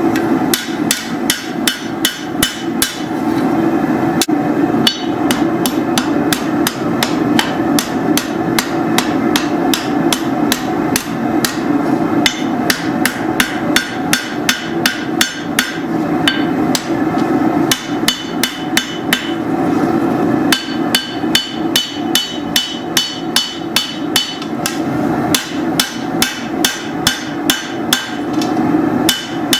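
Hand hammer forging a steel machete blade on an anvil: rapid blows at about three a second, each ringing, broken by a few short pauses. A steady low noise runs underneath.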